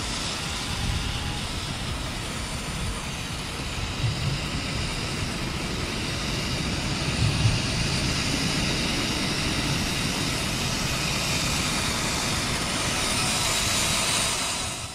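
1/12-scale ROCHobby Type 82E RC crawler driving over dirt and gravel: its electric motor and gearbox whine steadily, growing a little louder about halfway through.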